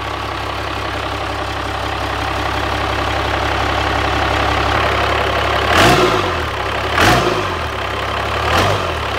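Cummins diesel engine idling on its first run after being swapped into the truck, revved briefly three times near the end by hand at the injection pump.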